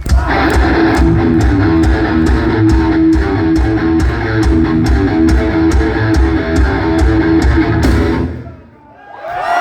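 Live heavy metal band playing loud, with distorted electric guitars and bass over a fast, steady drumbeat. The music stops abruptly about eight seconds in, and crowd noise starts to rise just before the end.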